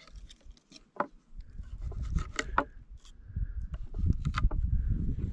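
Knife cutting a trout in half on a wooden cutting board: scattered clicks and knocks of the blade going through the fish and striking the board, over a low rumble.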